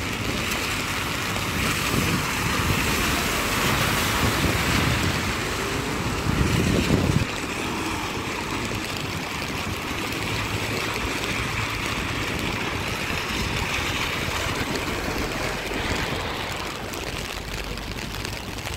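Steady hiss of rain and car tyres on a wet street, with a vehicle passing close and louder about six to seven seconds in.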